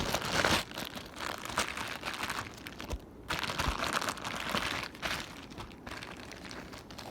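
Packaging crinkling and rustling in irregular spells, louder in the first second and again about halfway through, as small ceiling-fan parts are unpacked.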